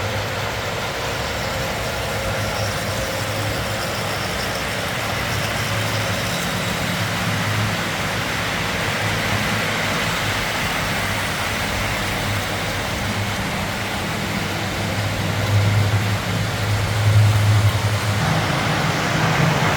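Model trains running on layout track: a steady electric-motor hum with a rolling rumble of wheels on rail, growing louder about three-quarters of the way through.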